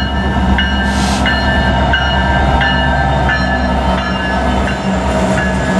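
A pair of SD70M-2 diesel-electric locomotives, each with an EMD 710 two-stroke V16, passing close by at the head of an intermodal freight train: a steady low engine drone over wheel and rail noise. A bell rings repeatedly through it, about three strikes every two seconds.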